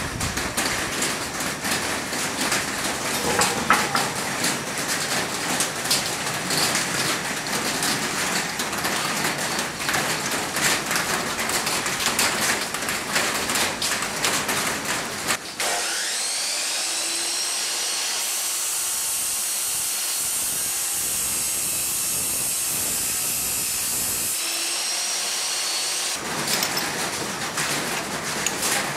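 An electric power tool's motor spins up, its high whine rising and then holding steady for about ten seconds before stopping. Before and after it there is a crackling, hissing noise full of sharp ticks.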